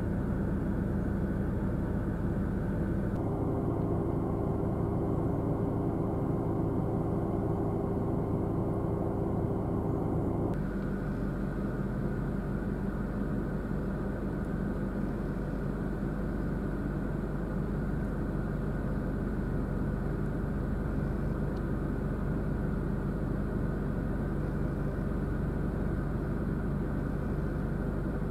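Steady low rumble of road traffic with a droning engine hum. Its tone shifts abruptly about three seconds in and again about ten seconds in.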